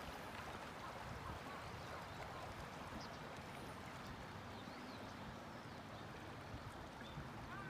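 Steady murmur of a river or stream flowing over rocks, with a few faint, high, short chirping calls scattered through it.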